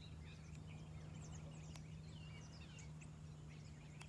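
Faint background birdsong: several birds giving many short, overlapping chirps, over a low steady hum.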